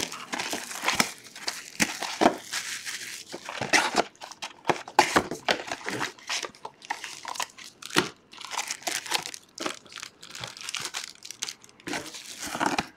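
Clear plastic shrink wrap being torn off a sealed trading-card box and crumpled by hand, an irregular run of crinkles and crackles.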